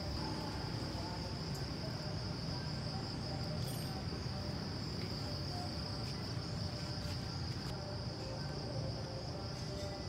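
A steady, high-pitched insect chorus that does not let up, over a low background rumble.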